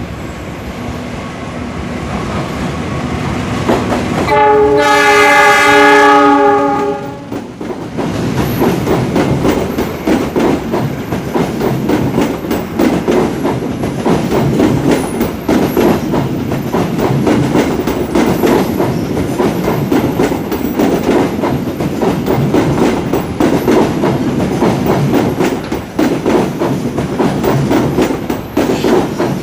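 A train approaching and sounding its horn once for about two and a half seconds, then passing close by with a steady rumble and rapid clickety-clack of wheels over rail joints.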